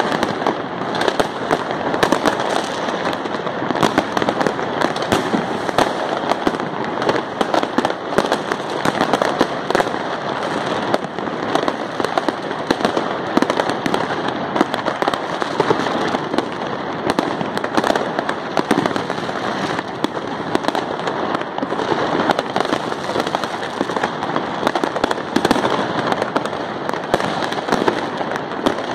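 Many fireworks and firecrackers going off at once: a dense, unbroken din of overlapping bangs and crackling.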